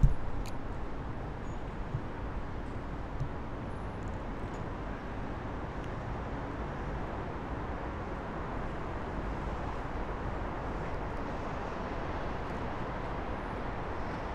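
Steady distant city traffic rumble, an even low hum with no single vehicle standing out. A sharp thump comes right at the start, with two softer knocks a couple of seconds later.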